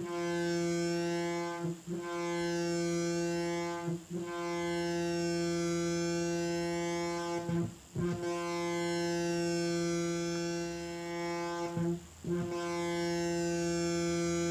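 Future Sound Systems Brunswick DIY synthesizer droning on one steady low pitch through its band-pass filter, a buzzy tone rich in overtones with a swirling, sweeping shimmer in the high end. It drops out briefly about four times and comes back each time.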